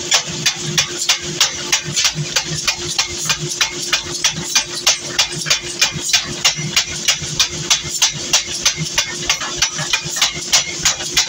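Power hammer pounding a red-hot cleaver blank on its anvil die in a steady rhythm of about three blows a second, over a constant machine hum.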